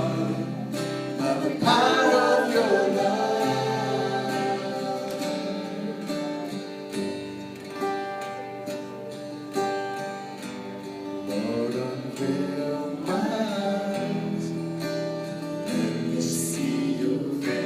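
Worship song sung by voices over plucked acoustic guitar, sustained notes held between lines.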